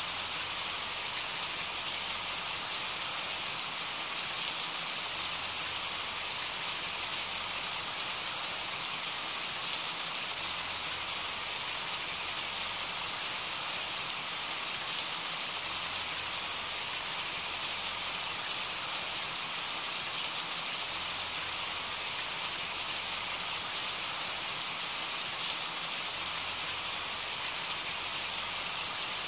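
Recorded rain ambience: steady rain falling, an even hiss with faint scattered drop ticks.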